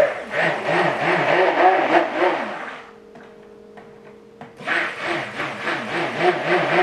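Hand-held stick blender running in cold-process soap batter of oils mixed with lye water and coconut milk, its motor pitch wavering quickly as it churns. It stops for about two seconds near the middle and then starts again, as the batter is blended toward light trace.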